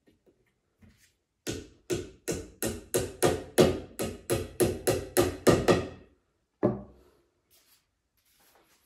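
A hammer tapping a small furniture part during flat-pack assembly: about fifteen quick, even blows, roughly three a second, then one last blow a moment later.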